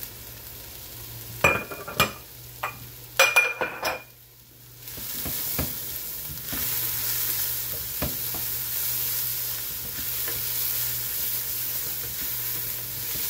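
Diced onion, shredded carrot and garlic sizzling in oil in a stainless steel sauté pan, stirred with a wooden spoon: a cluster of sharp knocks of the spoon against the pan in the first few seconds, then from about five seconds a steady, louder sizzle as the vegetables sweat.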